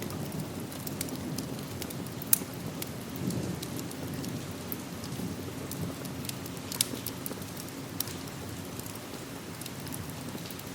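Steady rain with a wood fire in a fireplace crackling over it, giving scattered sharp pops, the loudest about two seconds in and again near seven and eight seconds.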